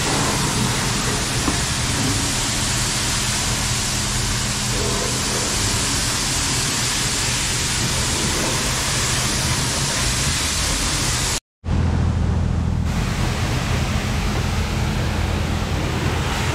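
High-pressure water spraying from a self-service car wash wand, a steady hiss with a low hum beneath. It cuts out for a split second about eleven seconds in and resumes.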